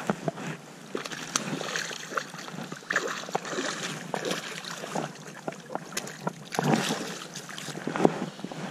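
Irregular splashing and rustling at close range, broken by scattered clicks and light knocks.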